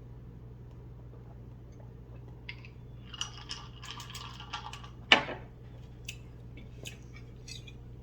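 Cutlery scraping and clicking against a dish while eating, with one sharp, loud clink about five seconds in and a few light clicks after it. A steady low hum runs underneath.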